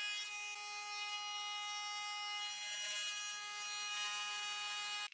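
Router table router running with a bearing-guided flush trim bit, trimming the edge of a 12 mm laminate-faced MDF blank: a steady high whine with the hiss of cutting wood. It stops abruptly at the very end.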